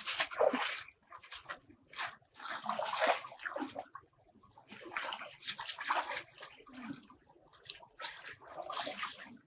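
Water splashing and sloshing in four separate bursts, a couple of seconds apart.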